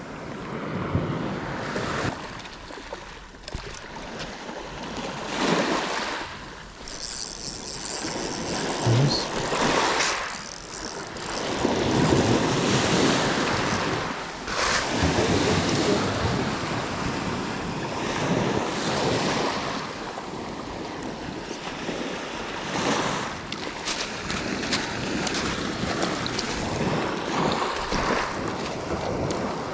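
Sea waves washing in and breaking on the shore, surging and falling back every few seconds.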